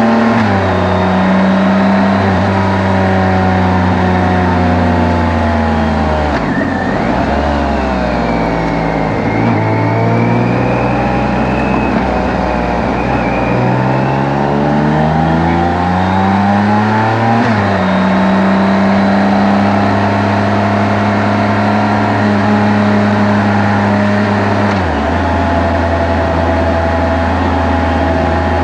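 Motorcycle engine under way, picked up by microphones mounted on the bike itself. The revs climb and drop several times as it works up and down through the gears, with a sharp fall in pitch at each shift.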